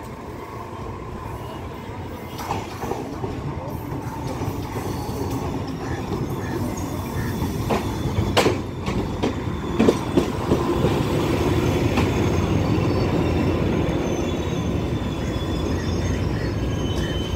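Sri Lanka Railways Class S8 diesel multiple unit pulling in along the platform. Its rumble builds as it approaches, and a few sharp clicks of the wheels over rail joints come as the front passes about eight to ten seconds in. It then runs with a louder steady rumble as it stands at the platform.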